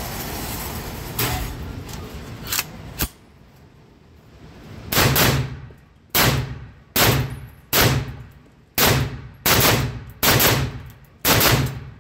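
Shots from an AR-57, an AR-15 firing 5.7x28mm, with sharp reports ringing in an indoor range booth. A few lighter pops come over a steady rushing noise in the first three seconds. Then from about five seconds in, about eight loud shots follow at uneven spacing, each less than a second apart.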